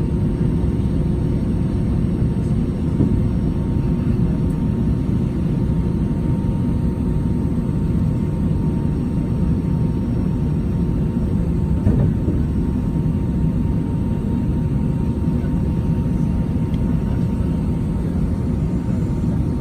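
Airbus A319 cabin noise on the ground before takeoff: a steady low rumble of the jet engines and cabin air with a faint steady hum. Two soft thumps, about three seconds in and about twelve seconds in.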